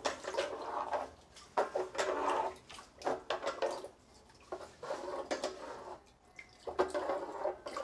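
Shallow water splashing and sloshing in a plastic drum as a hand gropes around to catch fish, in irregular bursts.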